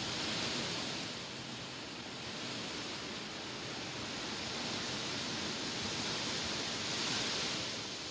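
Wind rustling through tall grass: a steady, airy hiss that swells with a gust just after the start and again near the end.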